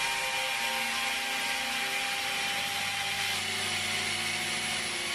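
Electric drill running steadily with a long twist bit boring into the edge of a wooden door: a constant motor whine over the grinding noise of the bit cutting through the wood.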